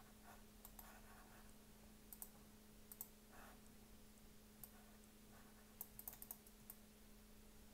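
Faint, scattered clicks of a computer mouse and keyboard, with a few in quick succession near the end, over a steady low hum.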